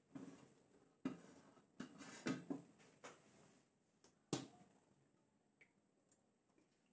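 Near silence broken by a few faint clicks and light knocks as a plastic squeeze bottle of cooking oil is picked up and handled; the sharpest click comes about four seconds in.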